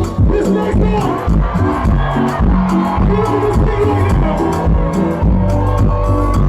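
Live Afrobeats music played loud through a concert sound system: a steady beat and deep bass with sung vocal lines, and a crowd audible underneath.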